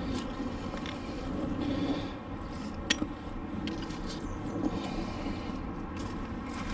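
Scrap metal being handled and pulled off a neodymium fishing magnet: rubbing and scraping with a few clicks, the sharpest about three seconds in, over a steady low rumble.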